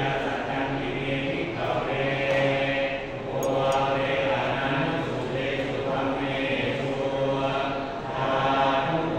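Buddhist monks chanting in unison, low male voices in a steady drone of long phrases, with short breath pauses about three seconds in and near the end. It is the chanting of an amulet-consecration (pluk sek) ceremony.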